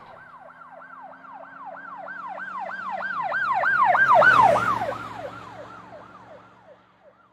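Emergency vehicle siren on a fast yelp, about three rises and falls a second, growing louder to a peak about four seconds in and then fading away as it passes, its pitch dropping slightly after the peak.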